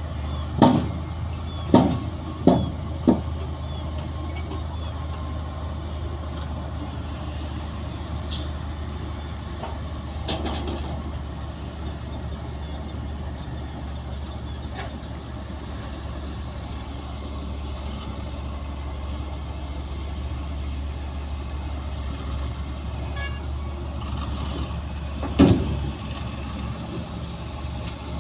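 Heavy diesel earthmoving machinery, a crawler bulldozer working with a dump truck, running steadily with a low rumble. Four sharp knocks come in quick succession in the first few seconds, and one more comes near the end.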